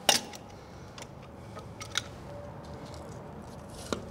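Sharp metallic clinks and taps of hand tools and loose metal parts at the engine's front seal housing, a few of them ringing briefly. The loudest comes right at the start, others follow around two seconds in, and one comes just before the end.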